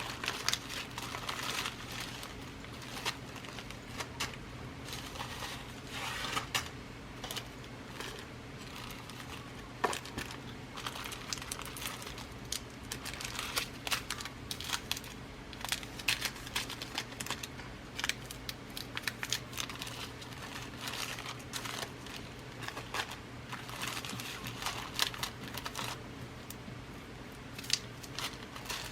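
Glass seed beads and their packets being rummaged through and handled: irregular rustling and crinkling with small sharp clicks, over a faint steady low hum.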